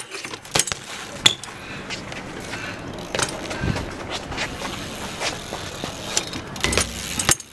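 BMX bike ridden on a concrete skatepark: tyres rolling on concrete with several sharp knocks and clacks of the bike landing and striking the ground, the loudest cluster near the end.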